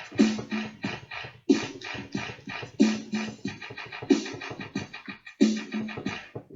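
A looped electronic beat with DJ-style record-scratch sounds, the same short phrase repeating about every 1.3 seconds.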